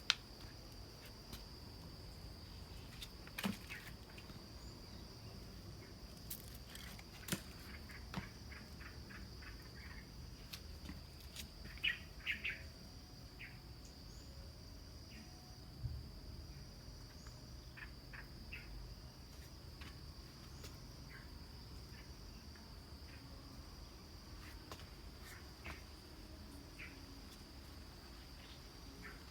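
Steady, high-pitched insect chorus, with scattered short chirps and a few soft clicks.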